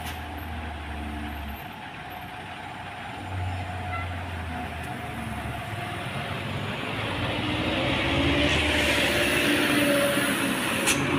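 Heavy truck's diesel engine running with a low drone and road noise, growing clearly louder about two-thirds of the way through.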